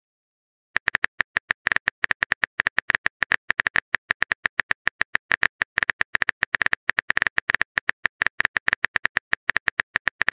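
Texting typing sound effect: a quick, uneven run of short keyboard clicks, several a second, starting about a second in.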